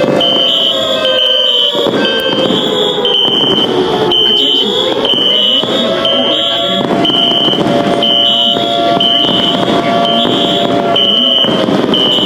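Fire alarm sounding: a high-pitched beep repeating at an even pace over a lower steady alarm tone, which swoops down and back up once about four seconds in.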